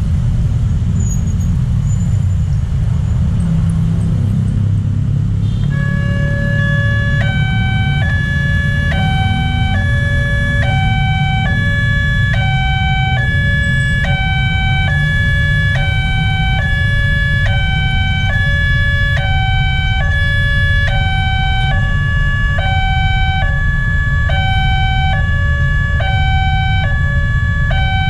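Railway level-crossing alarm starting about six seconds in: a two-tone electronic chime that swaps between a low and a high tone about every second, warning that a train is approaching. A steady low rumble of road traffic runs underneath.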